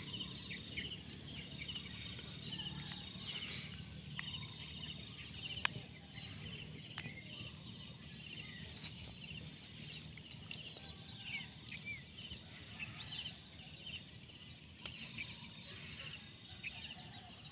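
Outdoor grassland ambience: a steady, high pulsing insect trill runs throughout, with scattered short bird chirps. A sharp click about five and a half seconds in is the loudest sound.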